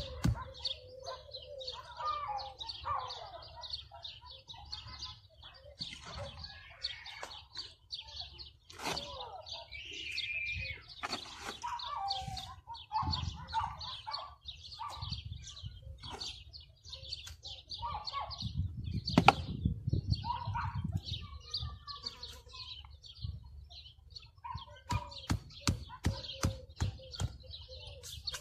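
Birds chirping steadily in rapid high notes, over short knocks and scrapes of stone blocks being handled and set in a wall. The loudest moment is a heavy thud about two-thirds of the way through.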